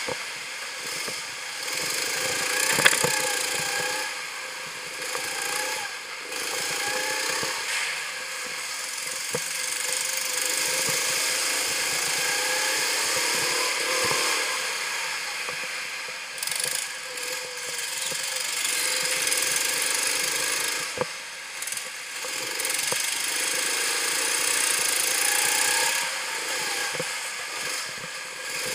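Go-kart engine heard onboard, its pitch rising and falling over and over as the throttle opens on the straights and eases off into the corners, under a steady rushing noise. There is a sharp knock about three seconds in and another about two-thirds of the way through.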